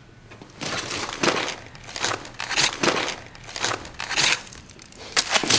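Hands rummaging through a handbag, its contents rustling and crinkling in a run of irregular rustles that start about half a second in.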